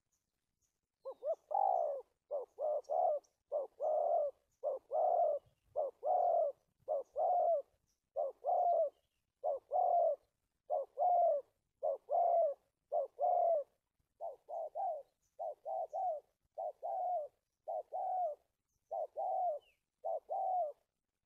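A spotted dove cooing over and over in short phrases, the opening notes of many phrases clipped and repeated in a stutter. This is a wild-caught bird's call as used in dove trapping.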